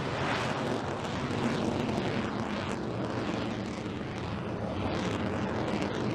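Jet noise from an F-22 Raptor's twin Pratt & Whitney F119 afterburning turbofans as the fighter maneuvers overhead: a steady, rushing noise with a deep rumble.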